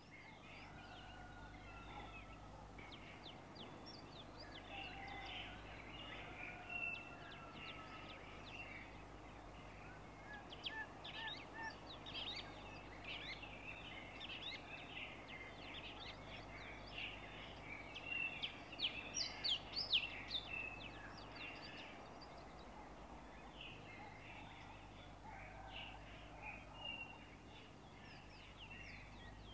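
Many small birds chirping and chattering at once, busiest about two-thirds of the way through, over a steady low hum.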